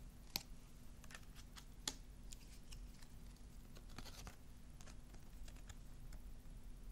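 Large oracle cards being handled and flipped by hand: faint, scattered clicks and light slides of card stock, the two sharpest about half a second and two seconds in, and a small cluster about four seconds in.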